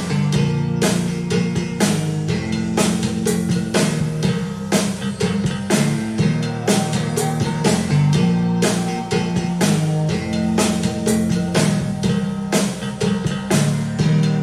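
Instrumental rock-pop music with a drum kit on a steady beat, guitar and a sustained bass line, played back through a pair of powered desktop speakers for a listening comparison.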